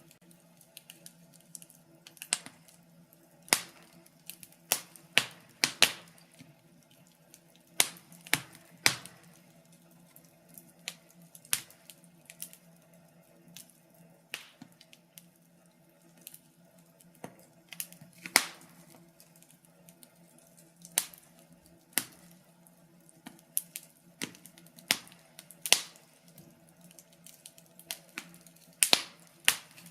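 Wood fire crackling: irregular sharp pops and snaps every second or so, some in quick pairs, over a faint steady hum.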